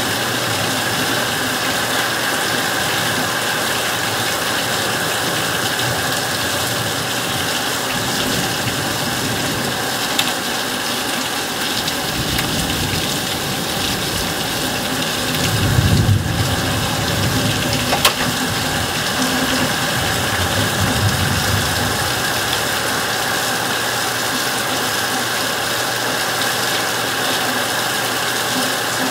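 Heavy thunderstorm rain pouring steadily onto leaves. A low rumble of thunder swells about halfway through and fades out a few seconds later.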